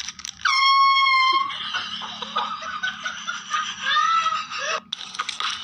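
An air horn blasts once about half a second in, a single steady high blare lasting about a second. A noisy commotion with a few shrill cries follows.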